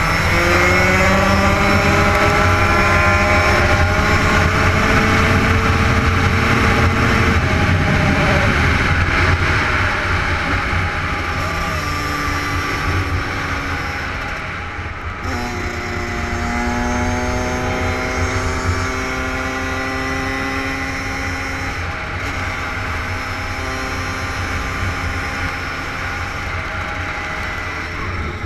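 Dirt bike engine pulling hard at speed, its pitch climbing through each gear and dropping at each shift, under heavy wind rumble on the microphone.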